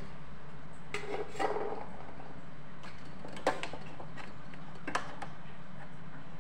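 Metal kitchenware clinking and clattering as boiled chickpeas are taken out of their cooking water: a short clatter about a second in, then two sharp clinks about a second and a half apart, over a steady low hum.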